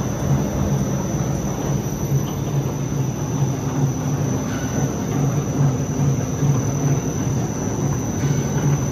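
Two-colour flexographic printing machine running steadily, its rollers carrying and rewinding the printed paper web: an even mechanical hum with a thin, high, steady whine above it.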